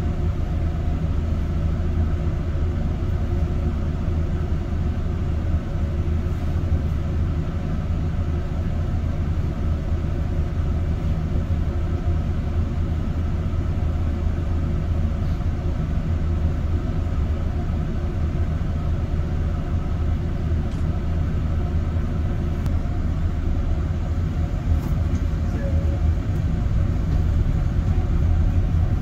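A city bus moving between stops, heard from inside the passenger cabin: a steady low rumble of engine and road noise.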